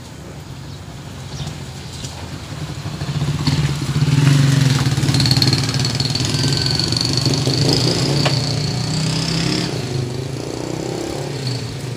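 Videoke machine's amplifier and speakers giving a steady low hum that swells about three seconds in as the gain is turned up, with a thin high whistle held for a few seconds in the middle.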